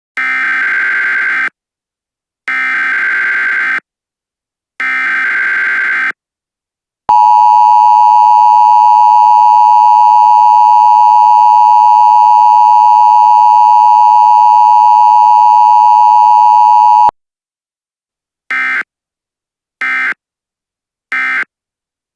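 Emergency Alert System tones: three harsh data bursts of the SAME header, each about a second and a half long, then the loud, steady two-tone attention signal held for about ten seconds, then three short data bursts near the end.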